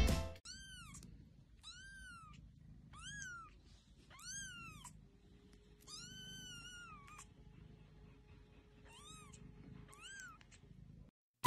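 Newborn kitten mewing: seven short, high-pitched mews, each rising then falling in pitch. The longest comes near the middle and lasts about a second.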